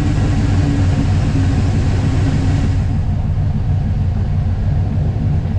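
A street rod's carbureted engine running with a deep, steady rumble while the car drives at low speed, heard from inside the stripped, roll-caged cabin. About three seconds in, the higher hiss drops away and the low engine note stays.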